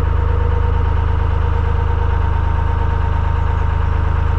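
Narrowboat's inboard diesel engine running steadily while under way, with a strong low hum and an even, fast beat.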